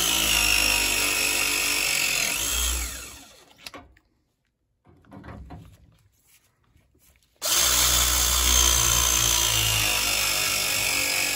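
Battery-powered pipe press tool crimping a press fitting onto copper pipe to install a brass ball valve. The motor runs for about three and a half seconds, its whine climbing near the end of the press, then stops. After a few seconds of near silence a second press cycle starts abruptly and runs on.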